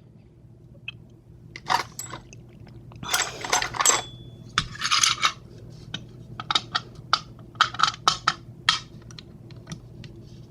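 Small metal parts of a Master Lock Pro Series 6321 padlock clinking and scraping as the lock is taken apart: a few scrapes in the first half, then a run of short sharp clicks.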